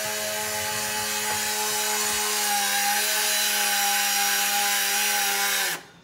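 Electric drivetrain of a radio-controlled model truck running: a steady whine over a hiss that cuts off suddenly near the end.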